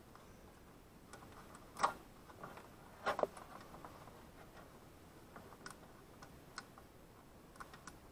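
Scattered faint clicks and taps of hands handling wires and small plastic parts, with two louder knocks about two and three seconds in.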